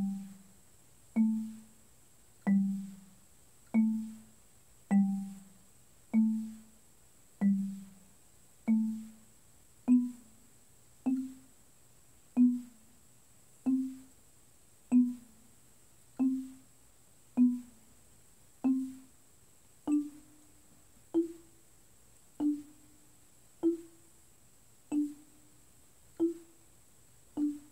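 Marimba played with yarn mallets in dead strokes at a very slow tempo: single notes about every 1.2 seconds, each one damped short as the mallet stays on the bar. The notes climb slowly in pitch through a G major pattern in the low register.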